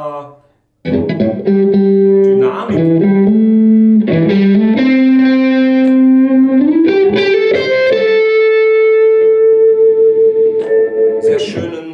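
Electric guitar (James Tyler Variax JTV-69) through a Line 6 Spider Valve MKII on its Crunch Blue amp model, an overdriven British crunch tone modelled on an Orange AD30TC. It plays a short single-note lead phrase starting about a second in, with notes bent up in pitch, and ends on one long held note.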